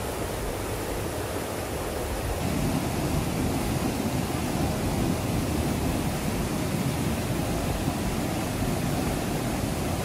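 Mountain stream rushing over rocks in white-water rapids, a steady noise of running water that grows louder and fuller about two and a half seconds in.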